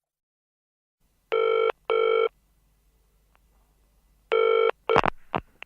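Telephone ringing with a double ring, pausing, then one more ring that stops short. A few sharp clicks follow near the end.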